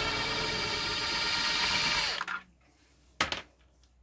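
Cordless drill-driver running steadily for about two seconds, backing a machine screw out of a wooden loudspeaker's front baffle, then stopping. A short knock follows about three seconds in.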